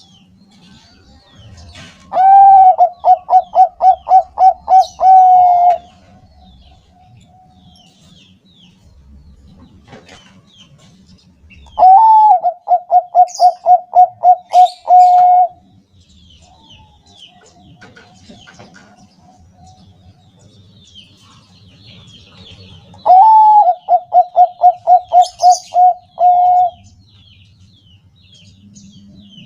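Zebra dove (Thai-bred 'Bangkok' perkutut) singing: three loud cooing phrases about ten seconds apart. Each opens on a short rising note and runs into a quick string of about ten even, pulsed coos.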